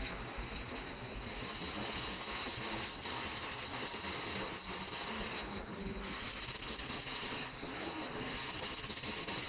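Gas brazing torch flame hissing steadily as it heats an aluminium motorcycle crankcase.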